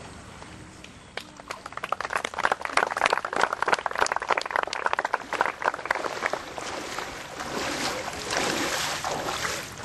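A crowd clapping, starting about a second in.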